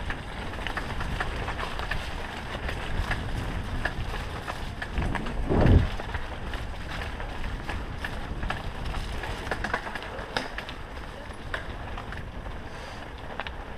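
Mountain bike riding fast over a rough, muddy dirt track: a steady rumble of tyres and wind buffeting the camera microphone, with frequent small knocks and rattles from bumps. A brief louder rush swells up about five and a half seconds in.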